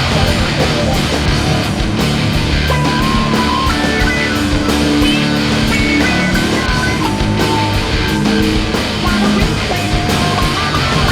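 Rock music with distorted electric guitar and a steady, driving beat.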